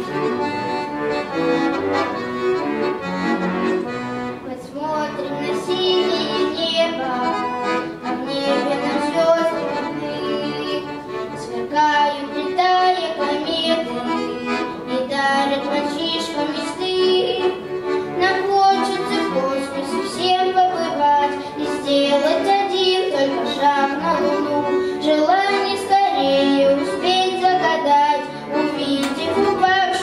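Accordion playing a song introduction, then a boy's voice singing in Russian from about five seconds in, with the accordion accompanying him.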